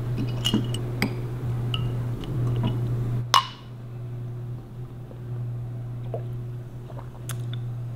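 A glass beer bottle being handled, with a lime pushed into its neck: light clicks and clinks of glass, and one sharp ringing glass clink a little over three seconds in. A steady low hum runs underneath.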